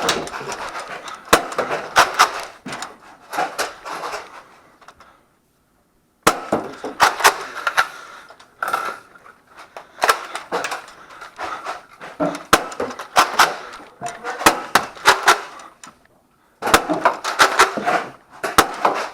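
A busy run of sharp clicks, knocks and clatter from an office Nerf war: blasters firing and foam darts striking hard surfaces. The sound cuts out completely twice, about five seconds in and again about sixteen seconds in.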